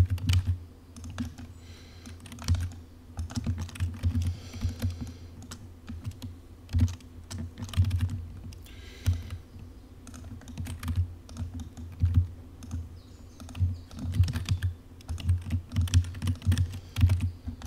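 Computer keyboard keys tapped in quick, irregular strokes as shortcut keys are pressed one after another.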